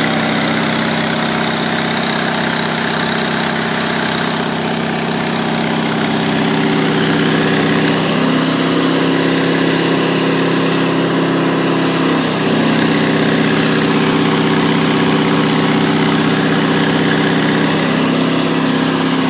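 MEP-002A 5 kW military diesel generator running steadily under an electric load, without bogging down. Its note changes for about four seconds in the middle and shifts again near the end, as the load is varied.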